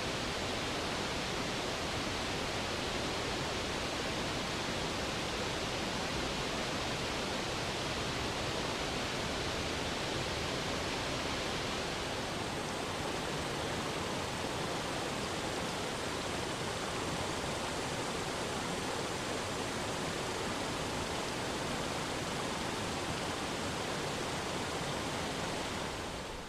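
Water of a tiered waterfall rushing and splashing over rocks in a steady, full roar of noise, its hiss easing slightly about halfway through.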